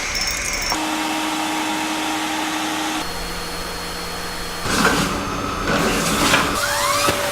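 Vacuum cleaner motor running with a steady whine. Its tone changes abruptly a few times, and rising whooshing glides come in over the second half.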